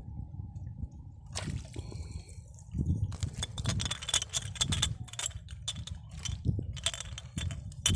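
Water splashing and sloshing in irregular bursts, starting about a second and a half in and coming thick and fast from about three seconds on, over a low rumble.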